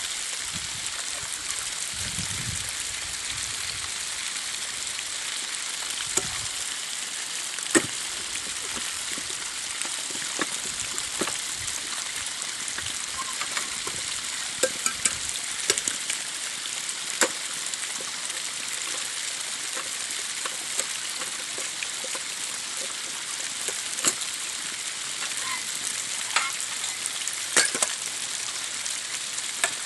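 A steady hiss throughout, with scattered sharp knocks and clicks from bricks being handled and dropped onto rocky ground, a cluster of them near the end.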